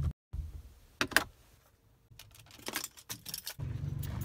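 Car keys jangling and clicking as the key fob is handled at the dash's key slot: a few sharp clicks and rattles, the loudest about a second in, then more jangling further on.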